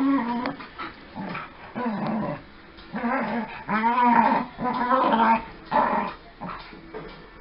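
Two dogs, a young Jack Russell-type terrier and a shaggy black dog, growling at each other as they play-fight. The growls come as a rapid string of short, wavering calls, loudest around the middle and tapering off near the end.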